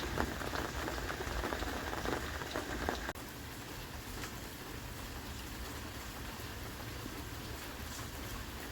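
Rain pattering with many distinct drops. About three seconds in it cuts abruptly to a quieter, even hiss of light rain with only an occasional drip.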